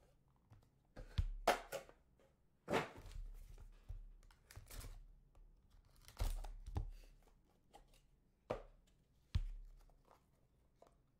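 A sealed trading-card box and its wrapping being torn open and handled: a string of sharp tearing and rustling noises at irregular intervals. Two short, sharp knocks come near the end.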